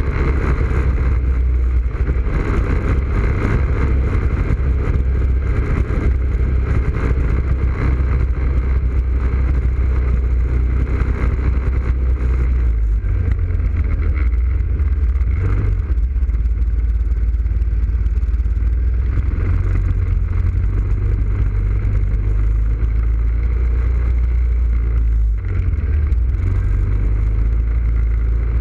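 ATV engine running steadily under way, heard close up from its front rack, with the engine note dipping briefly a little before halfway and again near the end.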